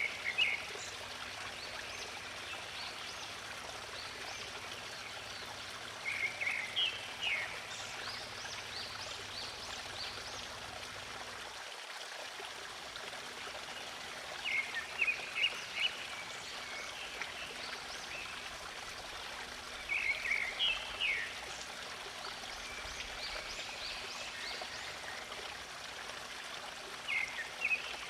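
Water in a stream flowing steadily, with a bird singing short bursts of high chirps about every six or seven seconds.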